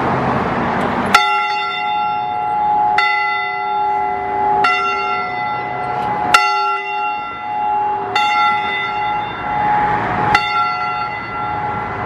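A single church bell tolling, struck six times at an even pace of roughly one stroke every two seconds. Each stroke rings on with a steady, layered tone until the next.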